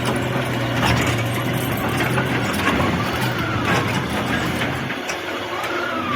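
Heavy vehicle engine running steadily, with scattered knocks and clatter over it. A wavering high-pitched tone comes in twice in the second half.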